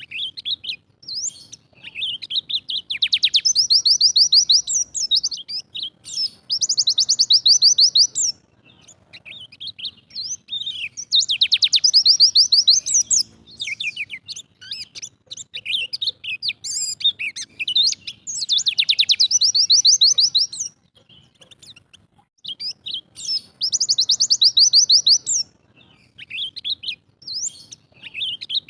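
Pleci (white-eye) singing its rapid-fire 'tembakan' song: loud, fast, high trills of about two seconds, repeated several times, with short chirps and twitters between them.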